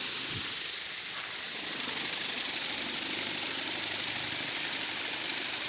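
Washing-machine motor spinning a 35-inch carbon propeller on 24 V, a steady rush of air with the motor running.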